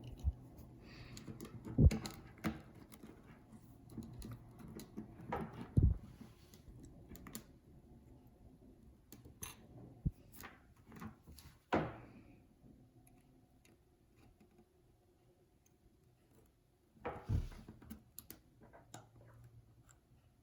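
Scattered small clicks and taps of tools and tiny parts being handled during phone repair, with a few louder knocks about two, six, twelve and seventeen seconds in and a quiet spell between.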